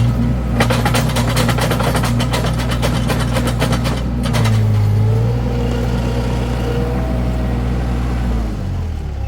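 Mini skid steer engine running under work, with a fast run of rattling, clattering clicks through the first half. The engine note drops lower near the end.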